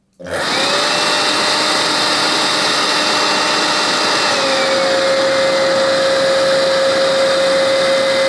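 Makita CL141FD 14.4 V cordless handheld vacuum cleaner switched on and running with a steady high whine. The whine drops a little in pitch about four seconds in.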